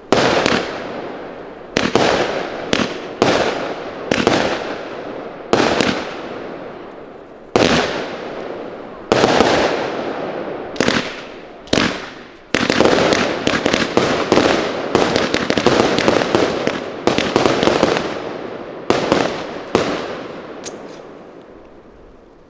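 Consumer firework cakes firing: a string of loud shots, each followed by a fading tail. They come in quick succession through the middle, then thin out and die away near the end.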